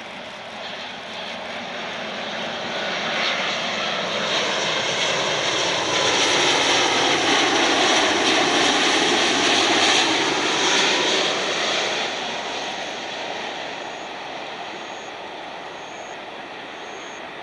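The two GEnx turbofans of a Boeing 787 on landing approach, throttled back to low thrust as the airliner passes overhead: a quiet, slightly low-toned jet rush that swells to its loudest in the middle and fades as the aircraft moves off towards touchdown.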